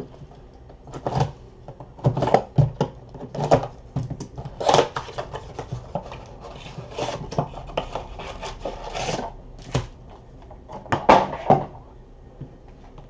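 Cardboard blaster box of Panini Mosaic basketball cards being torn open by hand and its stack of packs pulled out: irregular tearing, scraping and crinkling with sharp taps in between.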